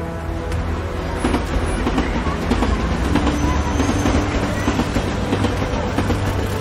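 A tram running on rails, its wheels clattering over a steady low rumble of city traffic, getting a little louder about a second in.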